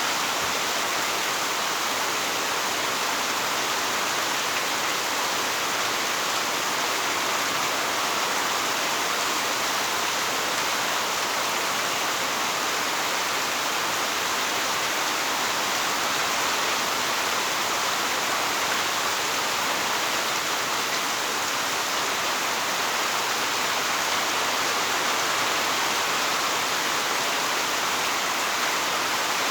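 Heavy rain falling steadily, a constant even hiss with no breaks or separate drops standing out.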